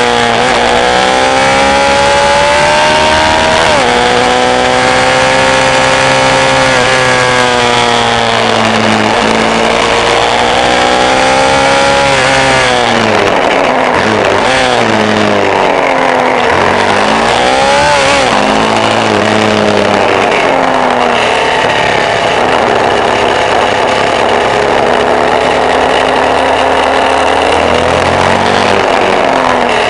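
Off-road vehicle engine running under load, its pitch climbing and dropping repeatedly as it accelerates and shifts gears, with a few quick revs about halfway through.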